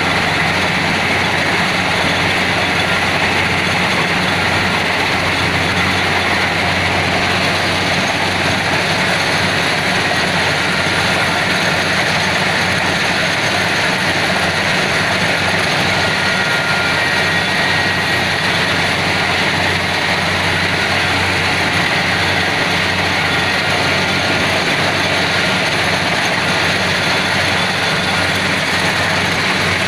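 Kubota DC70PH+ combine harvester's diesel engine and machinery running steadily at a constant pace, with a faint high whine over the hum.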